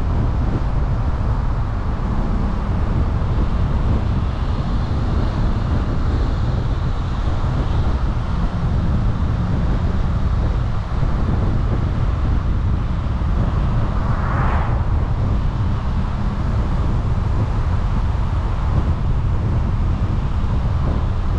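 A car driving at a steady speed: continuous low road and tyre rumble with wind noise buffeting the microphone. A brief higher-pitched sound rises out of it about two-thirds of the way through.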